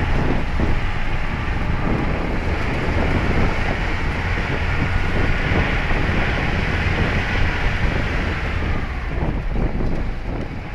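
Wind buffeting the microphone: a continuous, uneven low rumble with a hiss over it.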